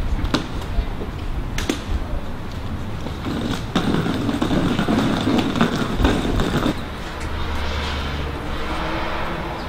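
Wheels of a rolling suitcase running over a concrete walk, a rough continuous rumble with sharp clicks here and there.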